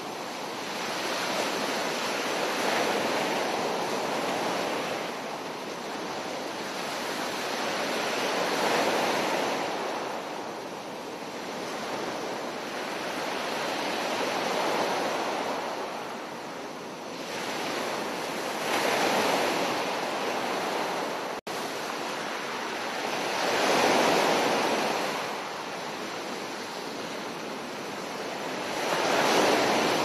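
Ocean surf: waves breaking and washing up the beach, the rushing swelling and easing every four to six seconds. The sound drops out for an instant about two-thirds of the way through.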